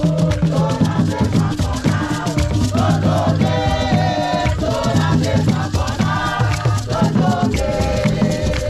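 Ghanaian drum ensemble playing a fast rhythm on barrel-shaped hand drums, with a chorus singing together and clapping over it.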